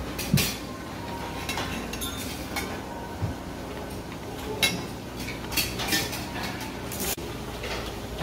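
Clatter of dishes and serving utensils at a self-service buffet: scattered clinks and knocks of crockery and metal over a steady dining-room hum.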